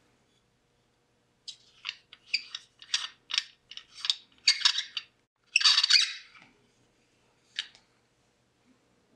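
Old telephone transmitter mouthpiece being unscrewed by hand from its metal faceplate, its threads squeaking and rasping in about a dozen short turns. The longest, loudest rasp comes about two-thirds of the way through, and one last short one follows.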